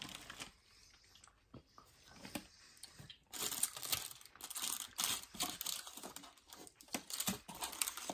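Plastic snack wrappers crinkling and being torn open by hand, in irregular crackly bursts that start about three seconds in after a quieter stretch with a few small clicks.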